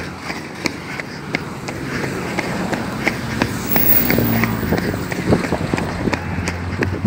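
Running footsteps on a concrete sidewalk, a quick even beat of about three strides a second. A low steady hum grows louder about halfway through.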